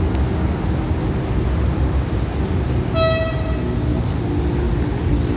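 Approaching commuter train giving a short, high horn toot about three seconds in, over a steady low rumble.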